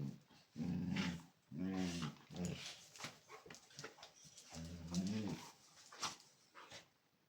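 Dogs growling in play: a few short growls close together, then another longer growl about five seconds in, with light clicks between them.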